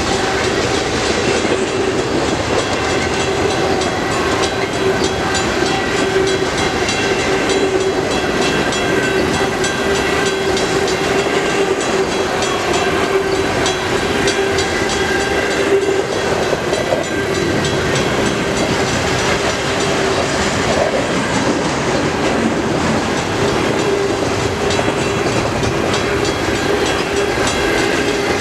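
A CN intermodal freight train rolling steadily past, its cars' wheels clacking over the rails, with a steady ringing tone over the rumble.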